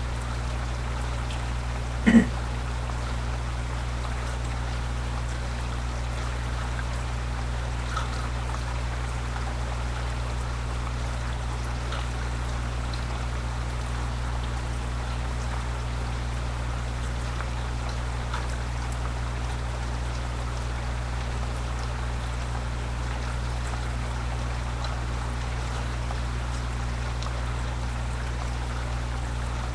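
Steady rain falling as a thunderstorm dies down, heard as an even rushing hiss over a constant low electrical hum. A brief sharp pitched sound stands out about two seconds in.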